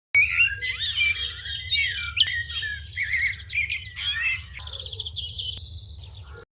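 Songbirds chirping and warbling, several short rising and falling notes overlapping, over a low steady rumble of recording noise; from about halfway through, a fast buzzy trill takes over. The recording starts and cuts off suddenly.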